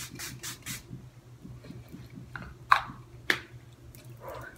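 Makeup setting-spray pump bottle misting in a quick series of short sprays, about four a second, stopping about a second in. Two sharp taps follow near three seconds in.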